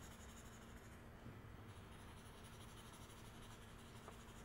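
Faint scratching strokes of a drawing tool on paper as graphite shading is worked into a drawing and smoothed. A low steady hum lies underneath.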